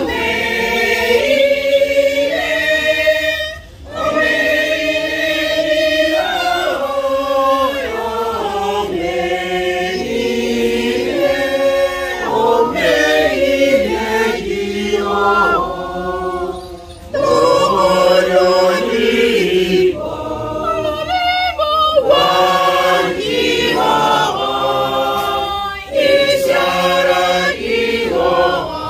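A group of voices singing a hymn together in chorus, with a woman's voice prominent. The singing dips briefly between lines three times.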